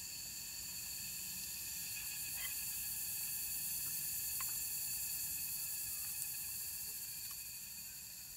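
Steady high-pitched insect chorus with a hiss under it, and a few faint, sparse pops from a smouldering campfire's embers; the sound fades down near the end.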